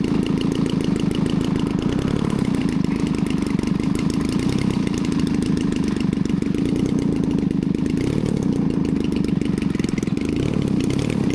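Desert Aircraft DA-120 twin-cylinder two-stroke gas engine of a giant-scale RC aerobatic plane running steadily, with a slight change in pitch a little after eight seconds in.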